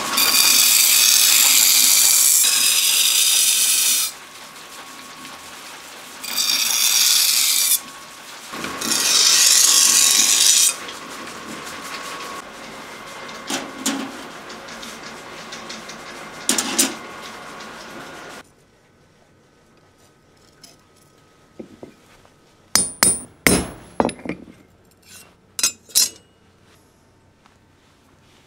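Steel knife blade held against a large motor-driven rotating grindstone: three loud hissing grinding passes over the steady hum of the turning wheel. About two-thirds of the way in the grinding and hum stop, and a few sharp taps and clinks follow near the end.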